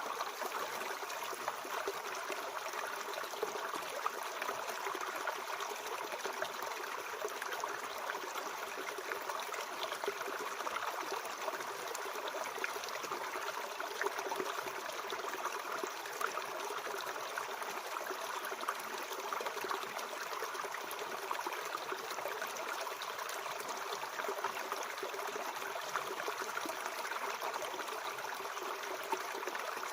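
Mountain stream flowing: a steady, even trickling rush of water.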